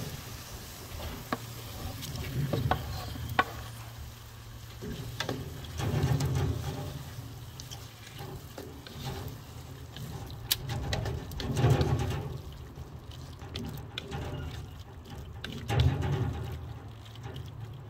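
Wooden spatula stirring sauced peppers in a non-stick pan on a charcoal grill: soft scraping and sloshing with scattered sharp taps against the pan, over a faint sizzle. Low swells of sound come and go every few seconds underneath.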